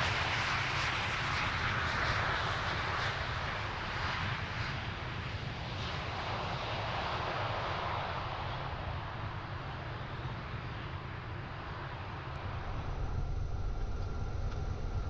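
KC-135R Stratotanker's CFM56 turbofan engines and rushing air, heard from inside the aircraft during the landing rollout with spoilers up. The hiss slowly fades as the jet slows, and near the end it gives way to a lower rumble with a faint steady tone.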